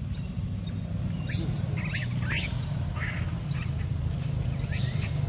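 A few short, high-pitched animal calls, some sweeping up and back down, over a steady low rumble.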